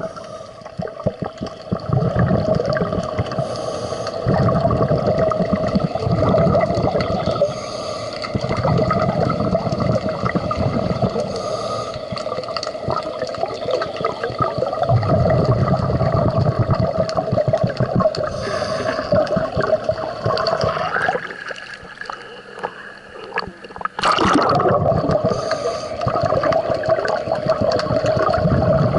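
Scuba diver breathing underwater through a regulator: a short hiss of inhalation, then a gurgling rush of exhaled bubbles, repeating every few seconds. A steady hum runs underneath and drops out for a few seconds past the middle.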